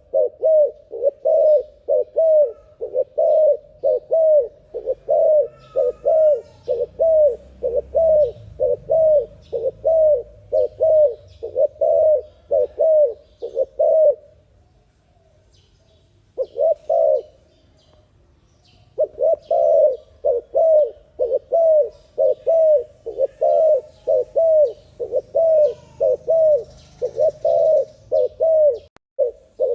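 Dove cooing in a fast, unbroken run of short coos, about two a second. It breaks off about fourteen seconds in, gives one brief burst, then takes up the rapid cooing again.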